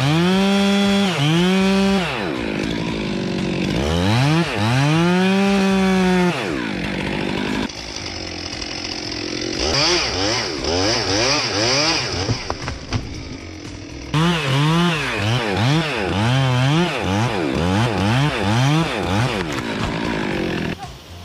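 Chainsaw engines revving up and down while cutting, across several short clips. Near the start a saw holds high revs, then one winds up from low revs; in the second half the engine surges up and down about twice a second.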